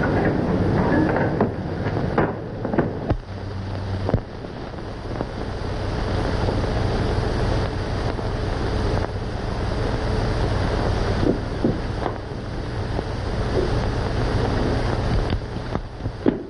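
Steady hiss and low hum of a worn 1930s optical film soundtrack, with scattered clicks and pops.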